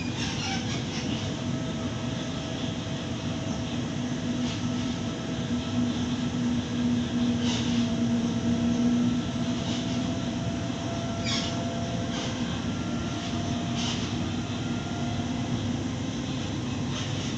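Inside the carriage of a Waratah Series 2 electric train running at a steady speed: a continuous rumble of wheels on track with a steady hum of several even tones from the traction equipment, louder for a few seconds around the middle. A few short high-pitched noises cut through.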